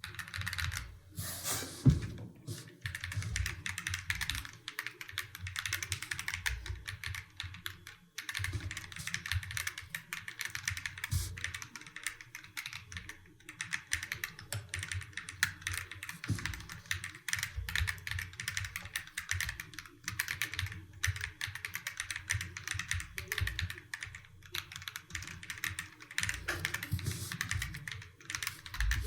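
DIY 65% mechanical keyboard with G-square White Knight v2 switches being typed on fast and continuously, a dense run of key clacks with one louder hit about two seconds in and short pauses around a third and almost halfway through.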